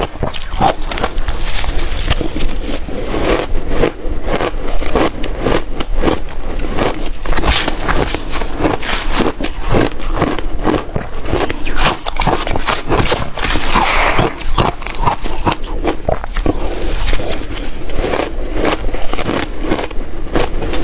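Close-up crunching and chewing of ice: a rapid, continuous run of crisp cracks and crackles with no pause.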